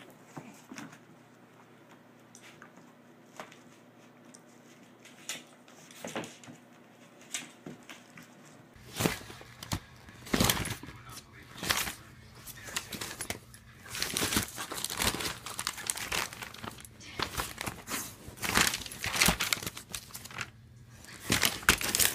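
Plastic packaging crinkling and tearing in irregular bursts from about nine seconds in. Before that there are only a few faint, scattered clicks.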